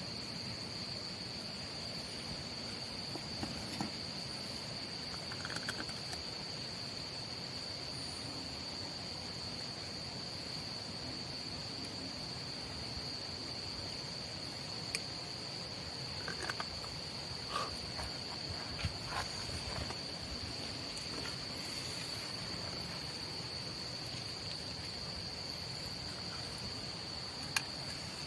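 Insects, crickets by the sound, trilling in one steady, unbroken high note, with a few scattered sharp clicks and ticks.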